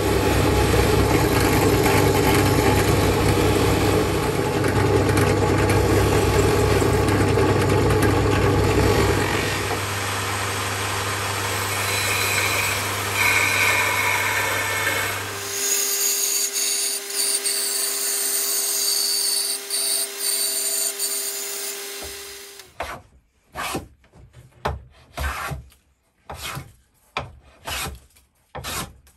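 First a drill press spins a buffing wheel while the steel claw hammer head is polished against it, a loud steady run with a low hum. Then a bandsaw rips a board of oak. In the last several seconds a hand plane takes repeated strokes along the oak handle blank, a short shaving swish about once a second.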